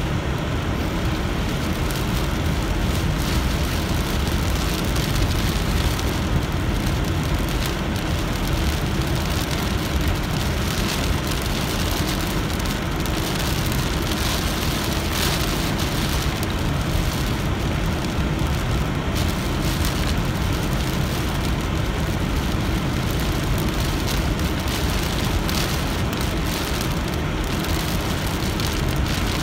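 Heavy rain falling on a car's roof and windshield, mixed with the tyres on the wet road and the car's running, heard steadily from inside the cabin.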